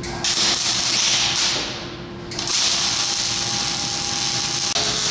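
MIG welder's arc crackling and hissing as a bead is run around the base of a square steel tube on a steel plate, in two runs with a short break about two seconds in.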